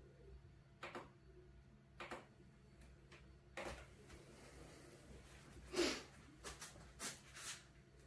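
Faint scattered knocks and rustles of a person moving about on foam floor mats, the loudest about six seconds in, over a low steady hum.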